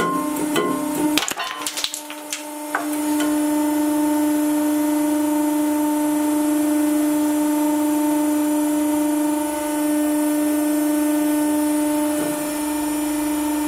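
Resin billiard ball cracking and shattering under a hydraulic press, a few sharp cracks within the first three seconds. After that, the press's hydraulic pump runs with a steady hum.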